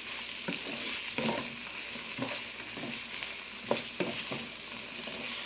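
Green beans and julienned carrot sizzling in a hot pan as they are stir-fried, with a steady hiss and repeated scrapes and clacks of the spatula against the pan.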